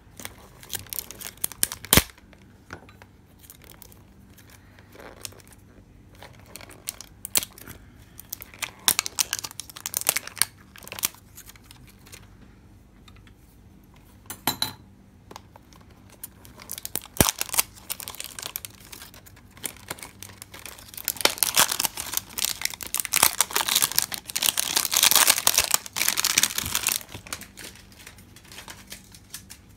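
Cellophane wrap being pierced and torn off a cardboard box, crinkling and rustling in irregular bursts with a few sharp clicks. It is loudest and most continuous about two-thirds of the way through as the wrap is pulled away.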